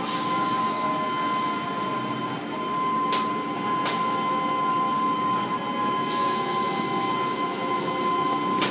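Automatic car-wash machinery running as the hanging cloth strips of the mitter curtain swish over a soapy car: a steady high whine over a layer of noise, with short bursts of hiss about three and four seconds in, around six seconds, and near the end.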